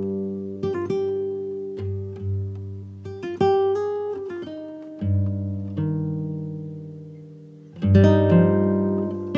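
Background music of plucked guitar notes that ring and fade over held low notes, with a louder chord near the end.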